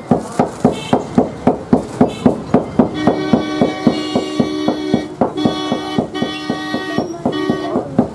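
Steady rhythmic pounding, about four blows a second, typical of gajak being beaten with mallets. From about three seconds in, a steady pitched tone like a vehicle horn sounds in long blasts, broken twice.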